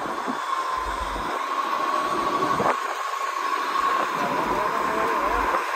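Caterpillar 631D wheel tractor-scraper's diesel engine running as the machine moves slowly past, with a steady high whine over the engine noise.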